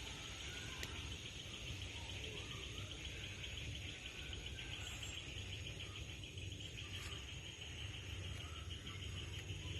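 Insects trilling steadily in a high, rapidly pulsing drone, with a few faint bird chirps and a low rumble underneath.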